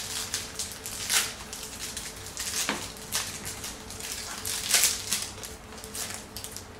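Yu-Gi-Oh! booster pack foil wrappers and trading cards being handled: irregular crinkling, flicking and rustling, with a faint steady hum underneath.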